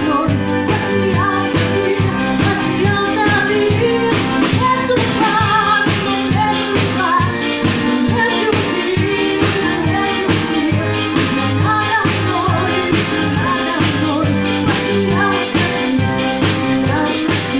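A band playing upbeat pop-dance music with a steady drum-kit beat under a melody.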